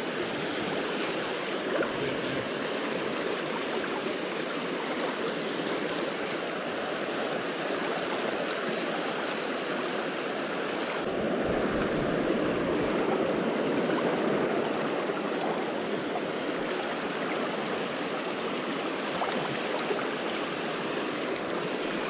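Shallow river water rushing steadily over rocks, heard up close. About halfway through it grows fuller and duller for a few seconds.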